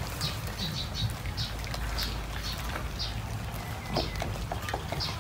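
A cat chewing raw fish: short, crisp chewing sounds repeating about twice a second, over a steady low hum.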